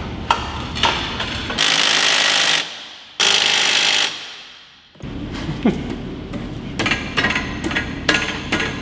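Pneumatic impact wrench running in two bursts of about a second each on the car's rear suspension bolts. Around the bursts come scattered clinks and knocks of tools and metal parts.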